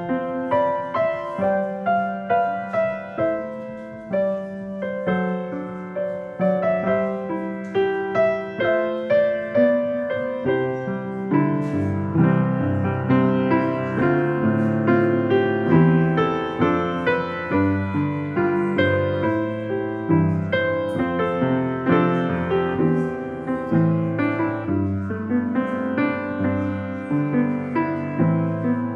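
Piano playing a piece of music, each note struck and fading, with deeper bass notes joining about eleven seconds in.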